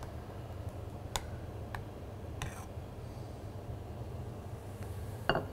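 Quiet kitchen room tone with a low hum, broken by three faint clicks of kitchen utensils against a saucepan or plate: about a second in, near two seconds and around two and a half seconds.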